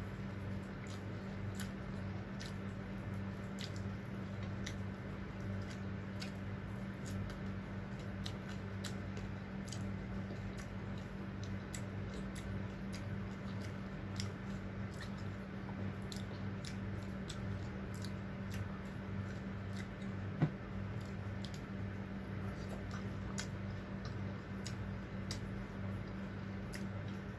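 Close-up eating sounds: chewing with scattered small wet mouth clicks, over a steady low hum. One sharper click comes about twenty seconds in.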